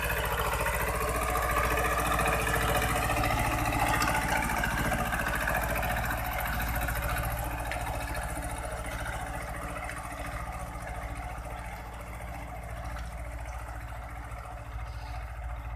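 Swaraj 724 two-cylinder diesel tractor engine running steadily under load as it pulls a 12-disc harrow through the soil, growing fainter over the second half as the tractor moves off.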